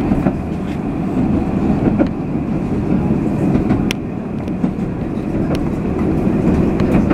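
Alstom Citadis 302 tram running at speed, a steady rumble of wheels on rail heard from inside the car, with a few sharp clicks.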